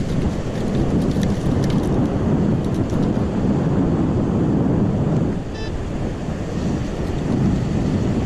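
Steady wind buffeting the microphone, with faint clicks in the first few seconds and one brief high electronic beep about five and a half seconds in.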